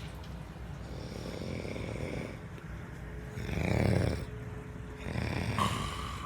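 A sleeping person snoring through three breaths, with the loudest snore about halfway through and a weaker one about a second later.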